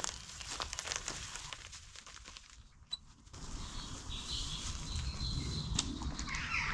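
Bicycle riding along a dry, hard dirt footpath: tyre noise with small clicks and rattles, getting a steady rumble after a few seconds. A bird calls near the end.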